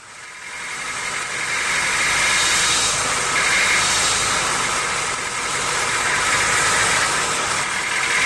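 Car with a bad transmission running: a harsh mechanical grinding with a faint steady whine in it, the sign of a failing gearbox. It builds up over the first two seconds and then holds.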